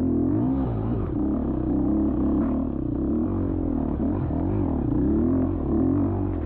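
Dirt bike engine under race throttle: its pitch rises and falls every second or so as the rider blips and rolls the throttle through the trail.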